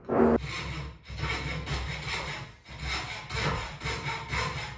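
Hacksaw cutting through a piece of softwood timber in steady back-and-forth strokes, notching it to fit around a picture rail.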